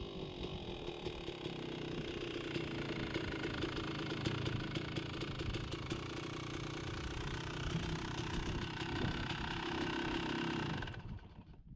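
2003 Kawasaki KX250's single-cylinder two-stroke engine running steadily, then cutting off near the end.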